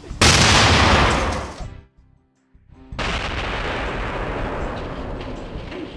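A loud blast from an illegal Polish firecracker (Polenböller) going off, its noise dying away over about a second and a half. After a short silence, a second stretch of steady noise starts about three seconds in.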